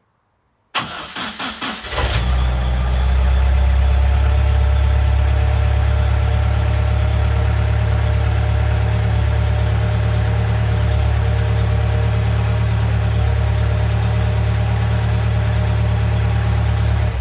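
A 1973 Datsun 510's carburettor-fed four-cylinder engine cranks on the starter for about a second, catches, and runs steadily. This is its first start with the spark fired by a newly fitted Speeduino ECU in place of the distributor.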